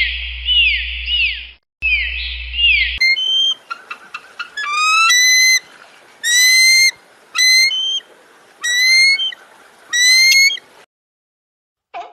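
Animal calls from two different recordings in turn: first a repeated arching call over a steady low hum, broken off twice, then a series of rising whistled calls, about one a second.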